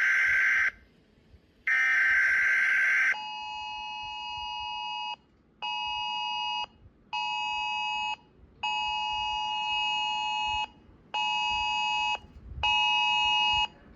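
An emergency alert alarm that combines the TV Emergency Alert System attention tone with the iPhone emergency alert. It opens with a harsh buzz, twice with a gap between, then the two-note attention tone pulses in a long-short-short, long-short-short rhythm like the iPhone alert.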